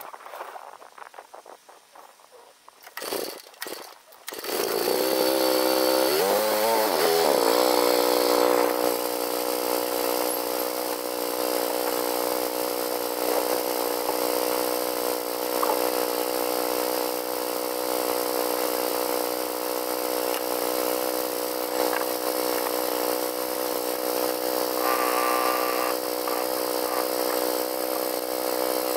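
Small single-cylinder gas engine on a homemade motorized snow sled catching about four seconds in, revving up and down briefly, then idling steadily.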